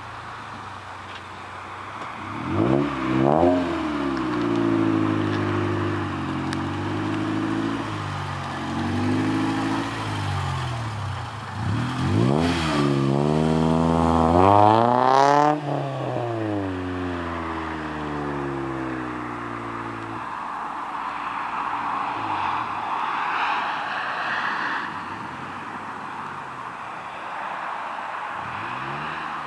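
Honda Civic's B16A2 1.6-litre DOHC VTEC four-cylinder engine being revved: two quick blips, then a long climb to high revs that cuts off sharply and falls back, with a rougher, steadier noise over the last third.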